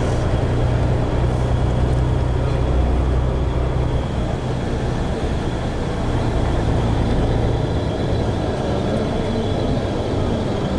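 Tour coach driving, heard from inside the passenger cabin: a steady low engine drone with road noise, easing a little about four seconds in.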